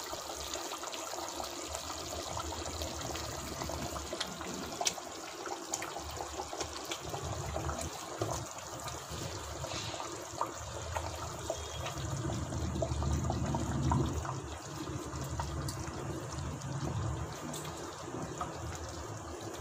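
Tomato-onion fish curry gravy simmering in a pot, a steady bubbling with a few small clicks.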